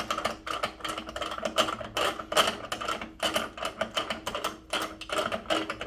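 Ratchet wrench clicking rapidly and steadily as the water heater earthquake strap's bolt is tightened to take up slack in the strap.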